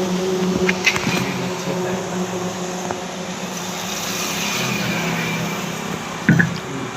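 A vehicle engine running steadily, with a low hum that fades about halfway through as broader vehicle noise swells. There are a few short metallic clicks, about a second in and near the end.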